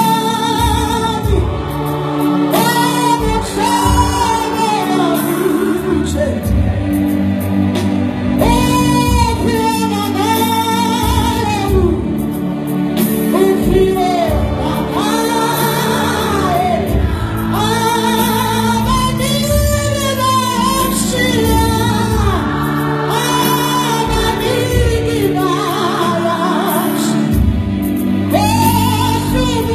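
A youth choir singing a gospel song in parts. A high melody line rises and falls in arching phrases over the held lower voices.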